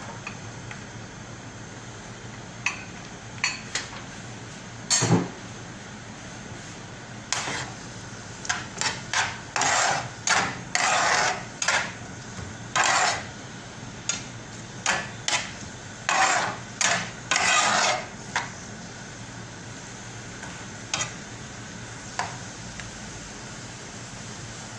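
A metal spatula scraping and knocking against a pan as onions are stirred in hot oil, in a run of short strokes that is busiest in the middle. A steady sizzle runs beneath.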